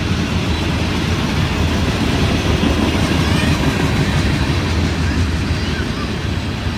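Freight train of covered hoppers and tank cars rolling past close by: a steady low rumble with the dense clatter of steel wheels over the rails.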